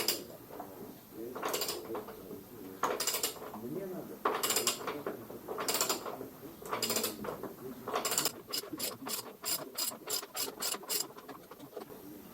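Ratchet wrench clicking on a nut of a moped's front end: about six slow strokes, then a quick run of about a dozen clicks near the end.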